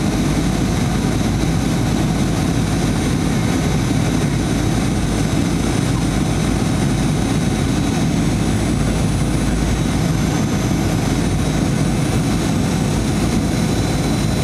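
Steady jet engine and airflow roar inside the cabin of a Boeing 737-900ER on approach, heard from a window seat over the wing, from its CFM56-7B turbofans. Faint steady high whining tones sit above the deep, even rumble.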